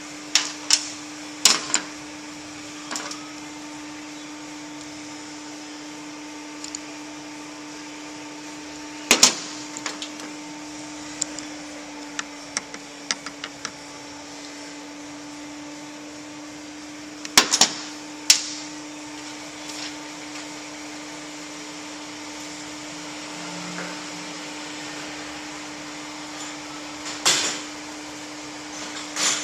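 Scattered sharp clicks and knocks of hand tools and metal parts being handled, over a steady low hum that cuts off at the very end.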